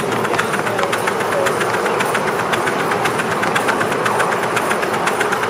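A 7¼-inch gauge live-steam model of an LMS Black 5 locomotive running with its train, heard from on board: a rapid, even beat of several strokes a second over a steady rush of noise.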